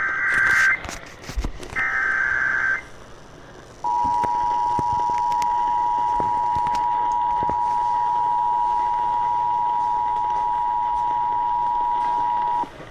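Emergency Alert System tones broadcast over AM radio: two short, warbling SAME digital header bursts, then the steady two-tone attention signal holding for about nine seconds before cutting off. These tones mark the start of a new EAS alert activation, here a National Weather Service severe thunderstorm warning.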